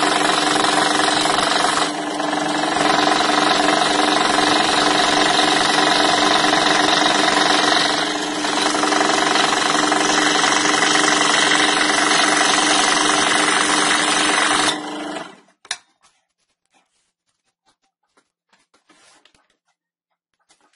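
Scroll saw running steadily, its reciprocating blade cutting a curve through 10 mm birch plywood. About three-quarters of the way through, the saw stops and winds down quickly, leaving near silence with a few faint clicks.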